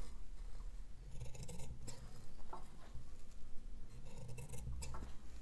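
Large tailor's shears making a series of short snips into fabric, cutting notches into the folds along a tweed jacket's front edge.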